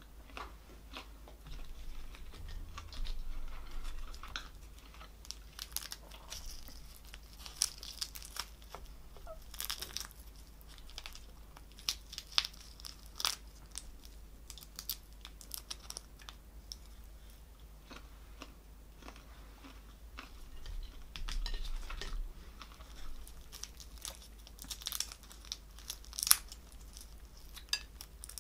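Boiled prawns being peeled by hand close to the microphone: the shells crack and tear away in scattered, irregular crackles, some quick clusters louder than the rest.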